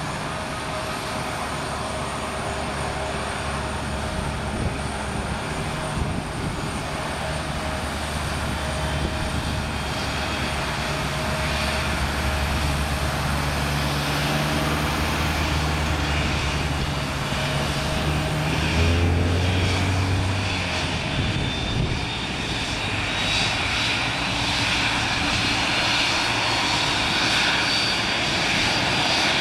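Jet engines of an Airbus narrowbody airliner running during pushback behind a tug, a steady drone with a low hum that jumps up in pitch about two-thirds of the way through. Near the end a thin high turbine whine slowly rises as an engine spools up during its start.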